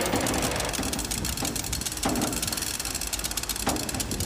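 An engine running steadily with a rapid ticking, with a couple of brief louder creaks over it about two seconds in and near the end.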